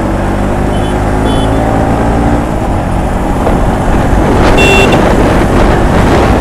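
Bajaj Pulsar NS200's single-cylinder engine pulling under hard acceleration at highway speed, heard from the rider's seat. A brief high beep comes about four and a half seconds in.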